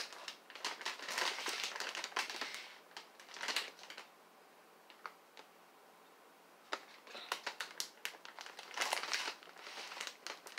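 Plastic potato-chip bag crinkling as it is handled and turned over. The crinkling comes in bursts, with a quieter stretch of a few light crackles in the middle.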